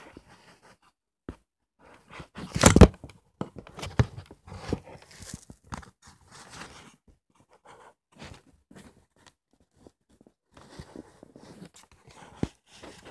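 Close handling noise: irregular rustling, scraping and clicking, loudest as a crackling scrape about three seconds in, then scattered clicks and a quieter stretch before more rustling near the end.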